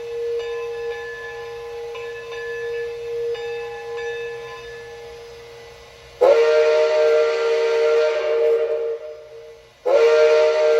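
Bachmann Shay model locomotive's DCC sound decoder playing a multi-chime steam whistle: a fading ringing tone gives way to a long whistle blast about six seconds in, and a second blast starts near the end.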